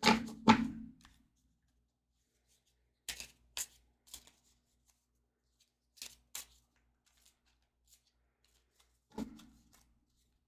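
A deck of spirit animal oracle cards being hand-shuffled, in short quick bursts of card noise, mostly in pairs about half a second apart, coming every few seconds with quiet between.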